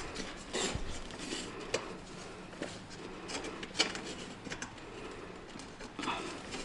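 Metal frame tubes of a kayak being handled and joined, with scattered light clinks and knocks and some rustling of the hull fabric.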